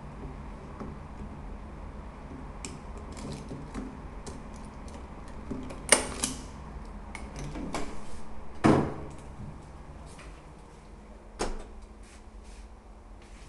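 Indoor doors and their handles being handled: scattered sharp clicks and knocks, loudest about six and nine seconds in, over a low steady hum.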